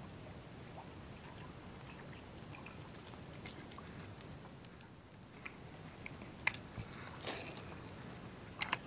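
Fishing rod and reel being handled: a few sharp clicks in the second half and a short rustle just past the middle, over a faint steady background.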